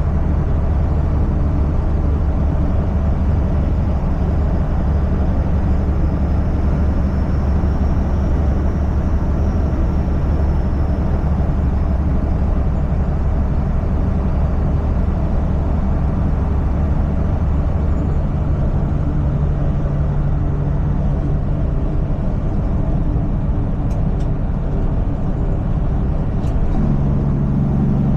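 Semi-truck's diesel engine and road noise heard from inside the cab, a steady low drone. The engine note steps up in pitch twice, the second time near the end.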